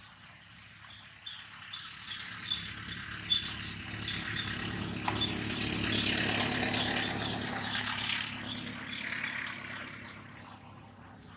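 A rattling, mechanical-sounding noise that builds up, peaks about six seconds in and fades away again, over a faint regular high ticking.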